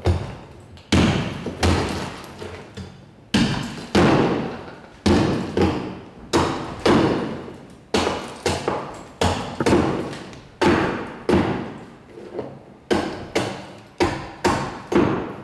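Meat cleaver chopping blocks of ice against a wooden floor: a steady run of sharp chops, about one to two a second, each with a brief cracking ring. The ice is being broken into small pieces to pack around a sorbet canister in a wooden barrel.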